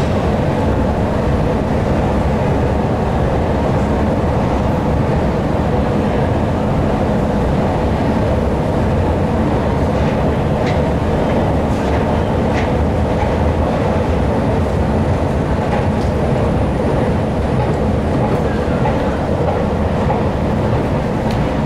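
Escalator running while being ridden upward: a steady mechanical rumble and clatter from the moving steps, with a few light clicks in the second half.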